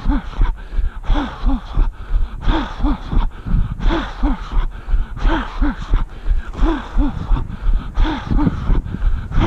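A runner's heavy rhythmic breathing: short voiced puffs of breath in pairs, about one pair every second and a half, over steady low thuds of footfalls.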